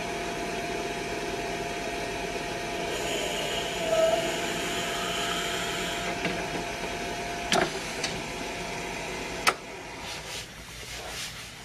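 A lathe runs with a steady whine while a hand-held drill bit bores into the spinning pen-section blank, drilling out the recess for the nib unit collar. There are two sharp knocks near the end, and after the second one the steady running drops away.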